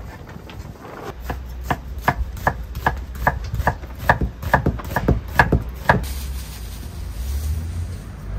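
Kitchen knife chopping onion on a wooden cutting board: a steady run of sharp strokes, about two and a half a second, that stops about six seconds in.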